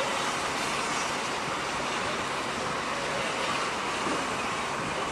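Steady rushing noise of a passenger train moving slowly alongside the platform, with no distinct engine note, horn or knocks.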